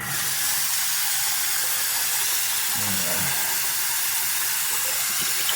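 A water tap running full and steady, a hiss that starts abruptly, while the water is left to run warm.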